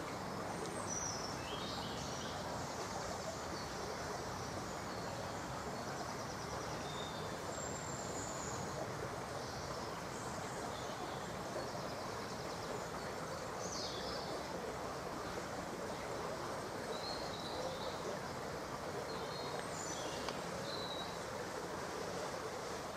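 Small songbirds giving scattered short, high chirps and trills over a steady rushing background noise.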